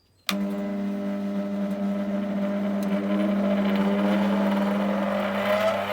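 Draper 05097 bench grinder (550 W, 200 mm wheels) switched on with a click, its motor humming loudly and a whine rising steadily in pitch as the wheels spin up to speed.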